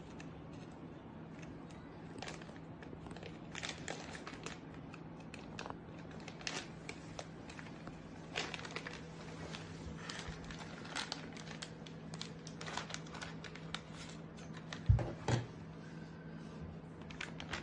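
Packaging of a newly delivered tripod being opened by hand: irregular crinkling, rustling and tearing, with two louder knocks about fifteen seconds in. A faint steady hum sits underneath.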